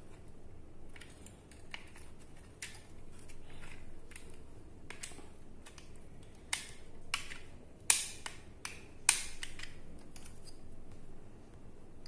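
Irregular sharp clicks and taps from handling a plastic switched power socket and a tester screwdriver pushed into its pin holes, with the loudest clicks in the second half.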